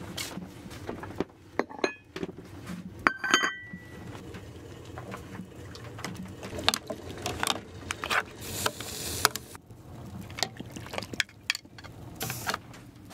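Metal pots, lids and dishes clinking and knocking as cooked meat is served from a pot onto a plate, with one ringing metallic clink about three seconds in and a short hiss near nine seconds.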